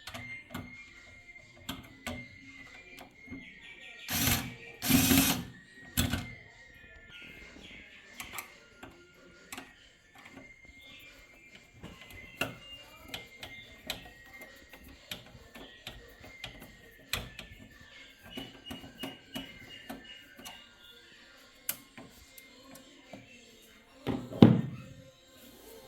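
Light clicks and taps of hands working on a PC's graphics card bracket and screw inside the case, over quiet background music. There are louder bursts of handling noise about four to six seconds in and a thump near the end.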